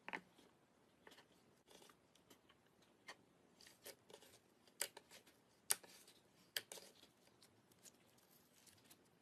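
Glitter slime being handled: a run of irregular soft clicks and sticky pops, with a few sharper pops about five to seven seconds in.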